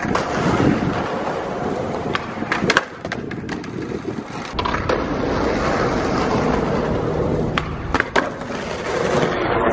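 Skateboard wheels rolling over rough alley pavement with a steady grinding rumble, broken by several sharp clacks of the board. A clack a little before eight seconds is the tail being popped for an ollie over a low wall.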